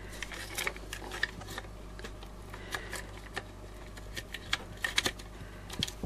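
Small irregular clicks and scrapes of fingers handling a plastic carbon-brush holder as it is refitted onto a vacuum cleaner motor, over a faint steady low hum.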